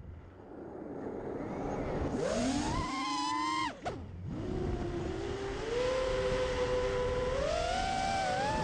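Brushless motors of an FPV racing quadcopter whining, their pitch rising and falling with throttle over a low rush of air. The whine climbs from about two seconds in, cuts off suddenly near four seconds as the throttle is chopped, then picks up again and rises in steps.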